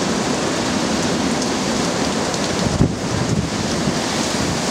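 Hurricane rain and wind: a steady heavy downpour with wind, and a sudden louder gust about three seconds in.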